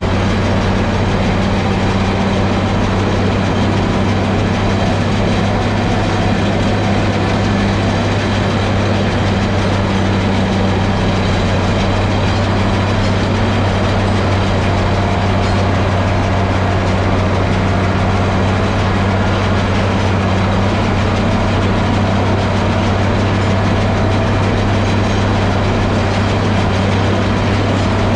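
International 1066 tractor's diesel engine running steadily at constant speed, a strong low hum.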